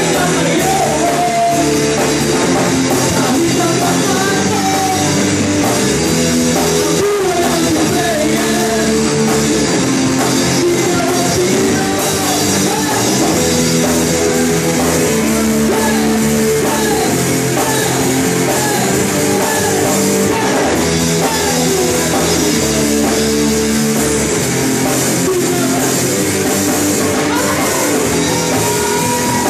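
Rock band playing a song: electric guitar, drum kit and a singing voice, loud and continuous.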